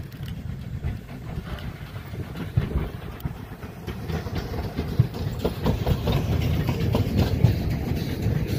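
Narrow-gauge steam train passing close by, growing louder as it nears. From about halfway through, the wheels of the locomotive and coaches clack over the rail joints above a low rumble.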